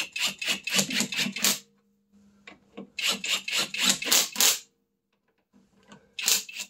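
Red cordless impact wrench running lug nuts onto a wheel's studs: three bursts of rapid hammering rattle, each a second and a half to two seconds long, with short pauses between them and the tool's motor humming steadily underneath.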